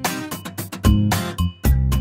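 Background music with a steady beat.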